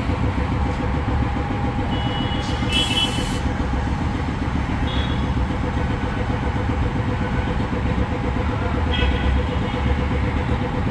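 A motor vehicle engine running steadily at an even speed. About two and a half seconds in there is a short high-pitched tone with a hiss.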